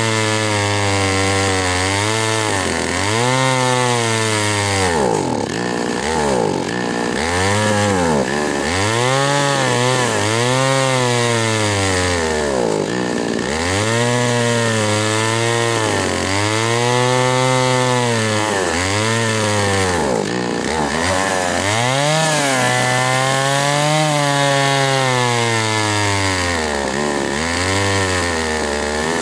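Jonsered 535 two-stroke chainsaw cutting through a log at full throttle, the engine note dropping as the chain bogs in the wood and rising again every second or two.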